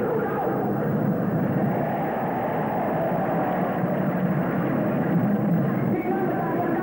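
Steady din of a large crowd, dull and muffled, with no high end, like an old low-fidelity recording.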